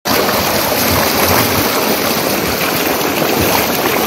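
Water gushing steadily into a concrete tank from a pumped outlet: an unbroken rushing and churning.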